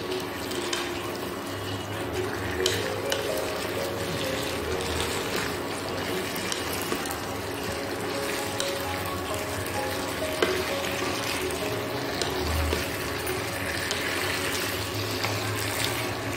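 Chicken in a thick sauce sizzling in a non-stick wok while a spatula stirs and scrapes it, with small scraping clicks, over faint background music.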